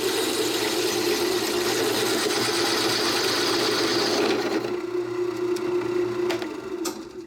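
Electric drill turning a bimetal hole saw into 1-inch cold rolled steel: the motor runs at one steady pitch under a harsh grinding hiss of the teeth cutting metal. The hiss eases about four seconds in, with a couple of clicks near the end, and the motor winds down at the close.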